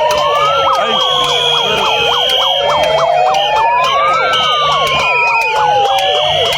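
Several sirens sounding at once: slow wails rising and falling over a few seconds, overlapping fast up-and-down yelps, with a steady high tone above them.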